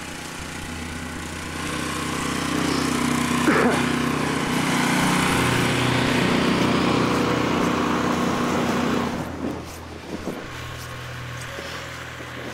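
Engine of a snow-clearing machine running in the street. It grows louder about two seconds in, holds, then drops away around nine seconds.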